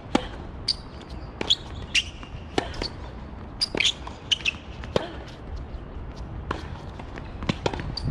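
Tennis rally on a hard court: tennis balls struck by rackets and bouncing, a sharp pop every second or so, with short high squeaks of shoes on the court between them.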